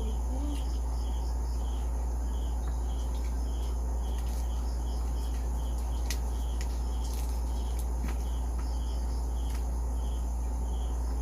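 A cricket chirping steadily, about two short chirps a second, over a loud constant low hum. A few sharp clicks break in scattered through the middle, from crunching crispy fried pork skin.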